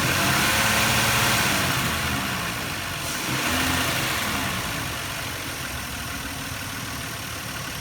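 2000 Nissan Maxima's V6 engine revved up from idle and let fall back, then blipped again more briefly, before settling to a steady idle.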